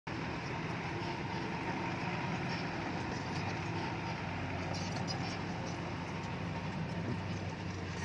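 Heavy construction-machine diesel engine running steadily, a constant low engine drone with no breaks.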